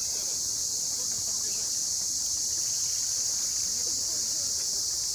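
A steady, high-pitched chorus of insects shrilling without a break, with faint distant voices underneath.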